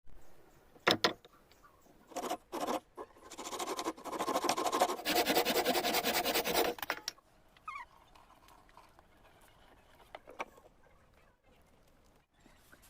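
Wood being worked: a sharp knock about a second in, two short scrapes a little after two seconds, then about four seconds of fast, rough scratching before it stops.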